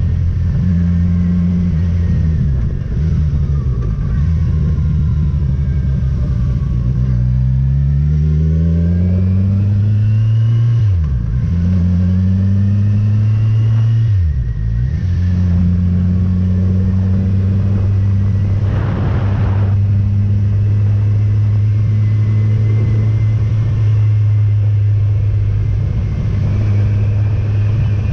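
Motorcycle engine under way. Its note climbs as it accelerates, falls and recovers twice as at gear changes, then holds a steady cruising pitch. A brief hiss comes about two-thirds of the way in.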